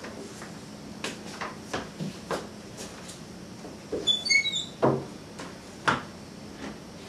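Closet door handled repeatedly: the knob and latch clicking, the door knocking as it is pushed open and shut. A quick run of short high-pitched notes comes about four seconds in, as the door swings open.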